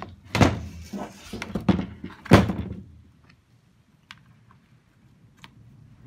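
Plastic condenser unit of a condenser tumble dryer being handled and knocked: several thunks in the first two and a half seconds, the loudest about two and a half seconds in. Then a few light clicks as a screwdriver works the screws holding its housing together.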